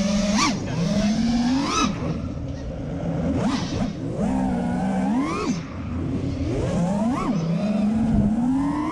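FPV racing drone's brushless motors whining, the pitch swooping up and dropping again every second or so as the throttle is punched and released, over a rush of wind and propwash.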